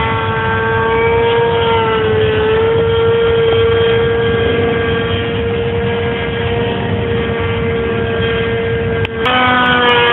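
Radio-controlled J3 Cub model airplane flying overhead, its motor and propeller giving a steady high-pitched drone. About nine seconds in the sound dips briefly, then comes back a little higher in pitch.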